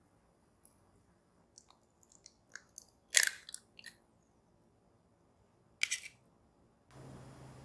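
A whole egg cracked against the rim of a glass mixing bowl: one sharp crack about three seconds in, then small clicks and crinkles as the shell is pulled apart over the bowl. Another sharp click comes near six seconds, and a steady low hum and hiss start near the end.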